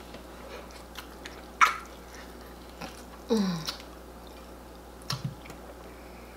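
Wet, open-mouthed chewing and lip smacking from eating soft, sticky fufu with egusi soup by hand. There are a few sharp smacks, one louder about one and a half seconds in, and a short sound falling in pitch a little past the middle.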